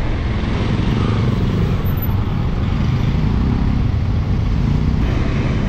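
Bajaj Pulsar NS200 single-cylinder motorcycle engine running steadily under way, with road noise.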